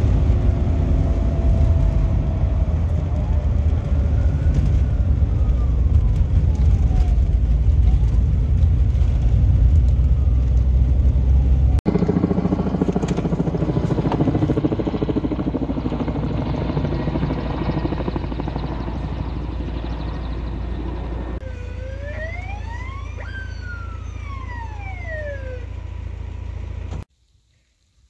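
A car driving on a dirt road, heard from inside the cabin as a heavy low rumble. Then a firefighting helicopter's rotor and engine. Then an emergency vehicle's siren wails, rising and falling once, before the sound cuts off near the end.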